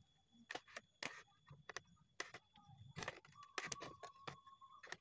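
Faint, scattered light knocks and clicks of wood being handled: a turned wooden table leg gripped and shifted on a stopped homemade wood lathe. A faint steady tone comes in after about three and a half seconds.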